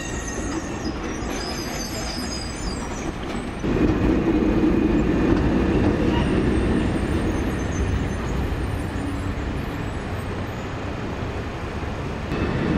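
A vehicle running: a steady rumble and noise that gets louder about four seconds in.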